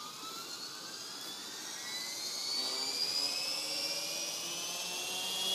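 Logo 800 electric RC helicopter spooling up on the ground: a whine of motor and rotor rising steadily in pitch and growing louder as the head comes up to speed.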